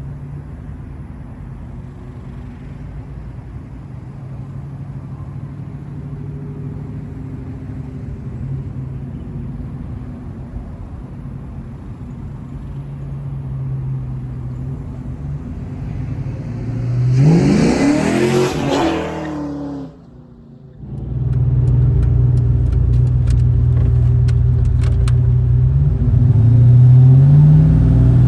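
Ford Mustang GT 5.0 V8 with headers, X-pipe and Flowmaster 40-series mufflers running at a steady engine speed. About 17 s in the revs climb sharply, drop for a moment around 20 s as at a gear change, then the engine pulls on louder with another rise near the end.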